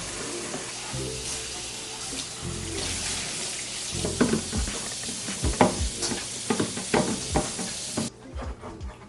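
Water running and spraying over fridge parts being washed in a sink, with clattering knocks as the parts are handled in the second half; the water cuts off suddenly about a second before the end. Background music with a bass line plays underneath.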